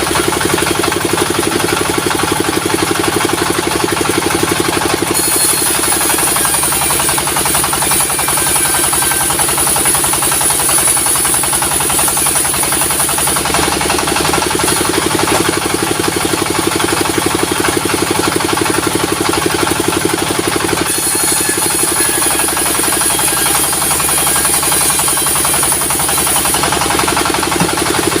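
Diesel-driven sawmill running steadily, with the saw cutting through a log in two long passes, each adding a bright, high hiss over the engine.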